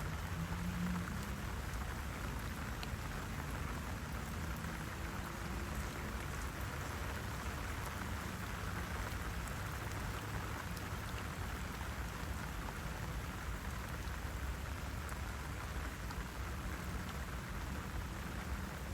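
Steady rain falling on lotus leaves, with scattered single drops ticking.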